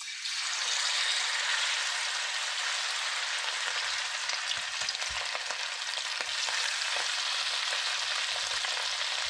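Seasoned fish pieces sizzling in hot oil in a frying pan. The sizzle starts suddenly as the first piece goes in and keeps going steadily as more are added.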